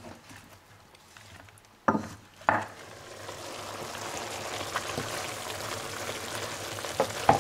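Chopped vegetables cooking in olive oil in a steel pot on medium heat: an even sizzling, bubbling hiss that builds from about three seconds in and holds. A few sharp knocks come from the wooden spoon against the pot, two near the middle and two near the end.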